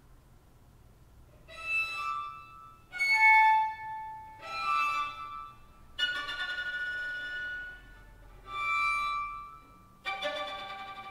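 Solo violin playing sparse, isolated notes of delicate harmonics separated by short silences. After about a second and a half of quiet come six separate notes, each roughly a second long, the fourth and last held longer.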